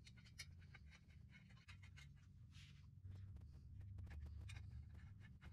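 Near silence: faint, scattered small clicks and scrapes of hands handling metal engine parts, over a low steady hum.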